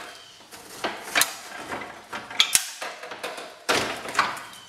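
Handling noise from a Jeep Liberty's plastic grille backer panel being worked into place: about half a dozen irregular clicks and knocks with rubbing and rustling between them, the sharpest knock about two and a half seconds in.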